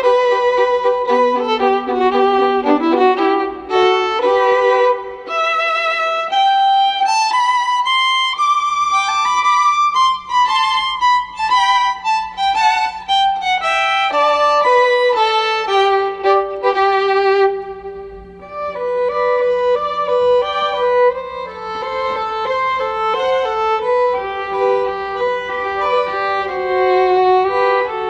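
Music: a solo bowed string instrument plays a melody, its notes wavering with vibrato and sliding from one pitch to the next, with a faint steady low tone held underneath.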